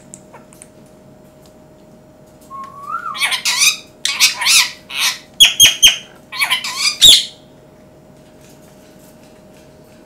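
Indian ringneck parakeet squawking and chattering: a short rising whistle, then a run of loud calls lasting about four seconds, ending with one last loud squawk.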